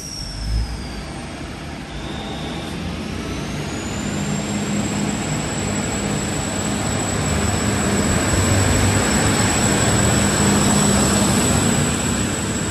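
Sydney Trains N set (outer-suburban Tangara) electric train accelerating away from the platform: its traction motors give a high whine that rises about three seconds in and then holds steady, over a low rumbling hum that grows louder as the cars pass close by. A short low thump comes about half a second in.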